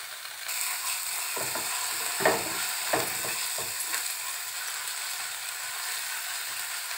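Ground onion paste and grated ginger sizzling in hot oil in a kadhai, stirred with a wooden spatula. The sizzle gets louder about half a second in, and the spatula scrapes across the pan a few times between about one and four seconds in.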